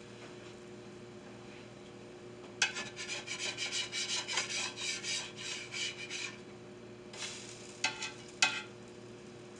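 Metal spatula scraping under pancakes on an electric frying pan in rapid strokes for about four seconds, then a few short scrapes and taps near the end.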